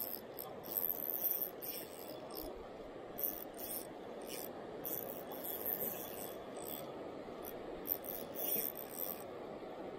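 Steady rush of flowing river water, broken by short, irregular high-pitched scratchy sounds every second or so.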